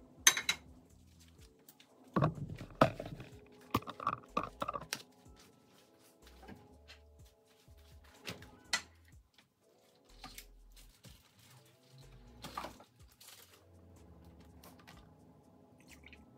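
Scattered knocks and clatter of kitchenware being handled and set down on a countertop, densest about two to five seconds in, over faint background music.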